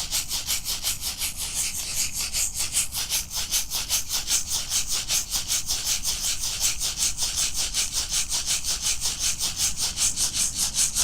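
A shaman's rattle shaken in a fast, even, unbroken rhythm, each shake a short dry hiss.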